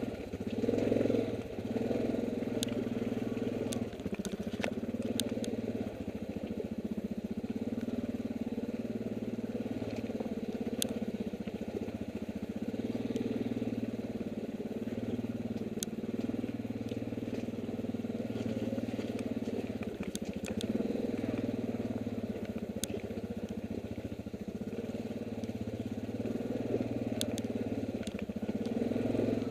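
ATV engine running at low, fairly steady revs as the quad picks its way down a rough, rocky trail, the note swelling and easing a little every few seconds. Scattered sharp clicks and ticks sound over it.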